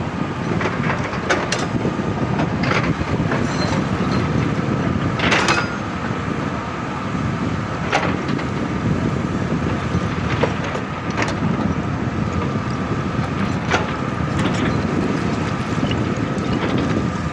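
Excavator's engine running steadily with a faint whine, with scattered irregular knocks and clanks from the machine at work.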